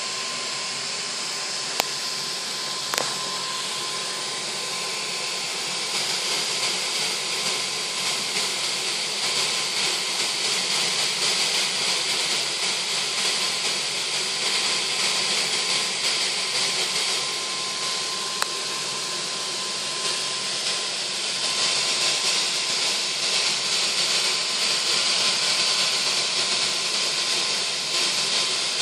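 Steady hiss of a multi-jet brass burner's small blue flames, burning HHO gas diluted with compressed air and hexane under pressure, with a faint steady whistle running through it. It gets a little louder about six seconds in and again around twenty-one seconds, with two sharp ticks a few seconds in.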